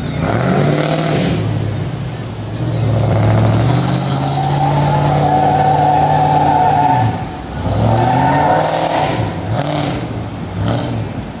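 Car engine revved hard. It climbs to a high rev and holds there for several seconds, drops about seven seconds in, then comes back as a few short blips of the throttle.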